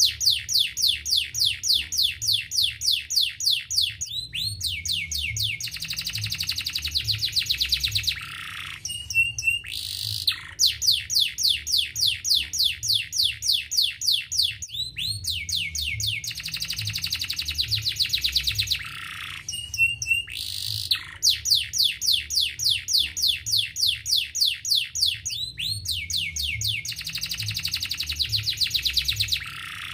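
Domestic canary singing a long song of fast trills, rapid strings of falling notes followed by buzzy rolled passages. The same sequence of phrases comes round again about every ten seconds.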